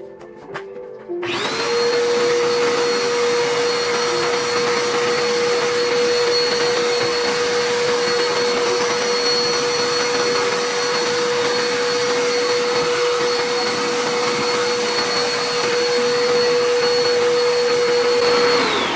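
An electric motor appliance with a fan or blower switches on about a second in and runs loud and steady, a whine over rushing air. Near the end it is switched off and its pitch falls as it winds down.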